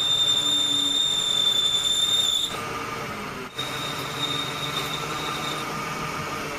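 A steady, high-pitched mechanical squeal from workshop machinery. It breaks off about two and a half seconds in, returns more faintly about a second later, then stops.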